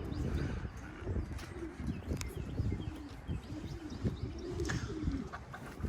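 Racing pigeons cooing, a steady run of low arched coos about two a second, with faint higher chirps over them.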